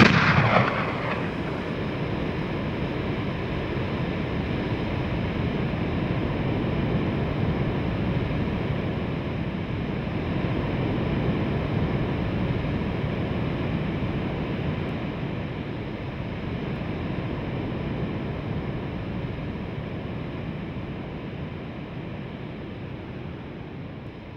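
Ocean surf washing onto a sandy beach: a steady rushing wash that fades slowly over the last few seconds.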